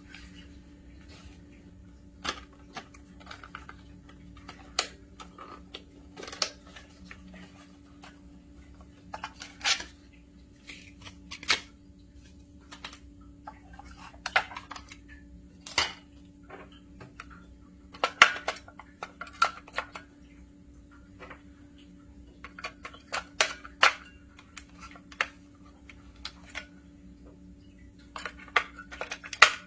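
Scattered plastic clicks and knocks from a Campark T70 trail camera being handled: its hinged case is opened and batteries are pushed into the battery compartment. A low steady hum runs underneath.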